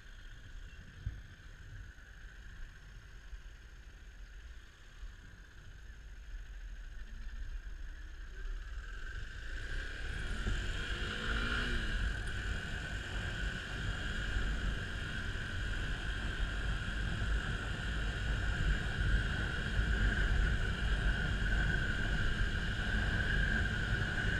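Kawasaki D-Tracker 250's single-cylinder four-stroke engine pulling away and speeding up, with a few rising revs about ten seconds in. Wind rumble on the microphone grows steadily louder as the bike gathers speed.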